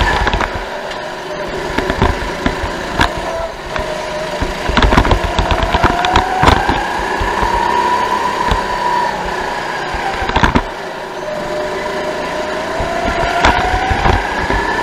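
Onboard sound of a Sodi rental go-kart's engine running at racing speed, its pitch climbing along the straights and dropping twice as it slows for corners, a few seconds in and again about two-thirds through. Frequent short knocks and clicks ride over the engine.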